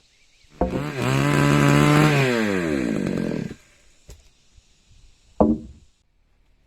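Chainsaw engine revving hard and then winding down as the throttle is released, followed by a brief throttle blip about five seconds in.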